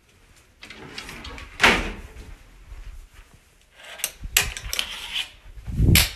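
A louvered bifold door being pushed open with a rattle, then sharp knocks and a heavy thump as a hand strikes a toilet tank lid and the floor. The loudest knock comes about a second and a half in, a quick cluster of clicks around four seconds, and the deepest thump near the end.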